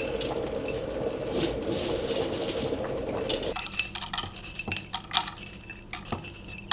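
Dried, roasted lettuce-stalk pieces rustling and clinking against glass as they are pushed by hand into a glass jar, over a steady hum that stops about halfway through. After that, scattered small clicks as the dry pieces drop into a glass tea infuser.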